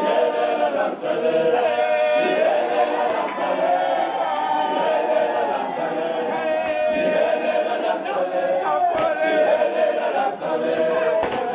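Men's choir singing unaccompanied in several parts, loud and steady throughout.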